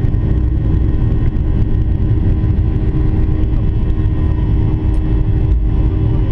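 Steady low rumble of a Boeing 737-800's CFM56 jet engines and airflow, heard from inside the passenger cabin, with a few steady engine tones over it.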